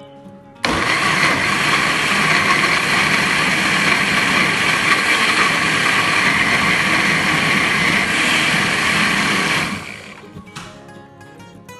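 Farberware countertop blender switched on less than a second in, running steadily at high speed for about nine seconds while it purées tomatoes and peppers, then running down near the end. A brief burst of sound follows soon after.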